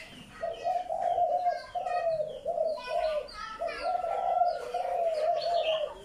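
Several caged birds calling at once: a low, wavering call repeated in short notes through the whole stretch, with higher chirps and tweets over it.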